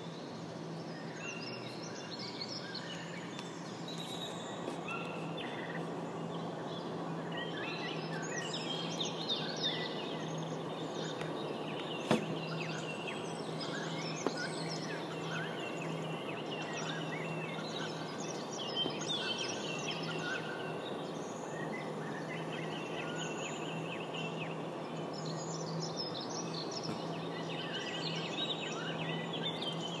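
Many birds chirping and calling together in quick, overlapping bursts over a steady background hiss and a low hum, with one sharp click about twelve seconds in.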